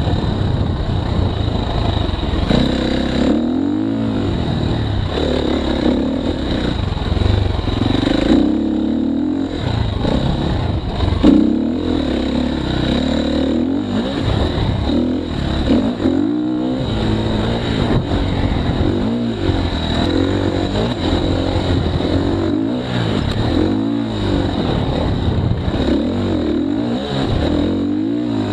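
KTM 350 XC-F dirt bike's single-cylinder four-stroke engine under way, revving up and falling back again and again with the throttle, heard from the bike. A single knock sounds about eleven seconds in.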